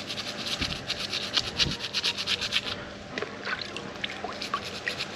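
A stiff brush scrubbing an abalone in quick back-and-forth strokes, about six a second, to clean off sand and dark discoloration. The scrubbing stops about halfway through, followed by a few faint light clicks.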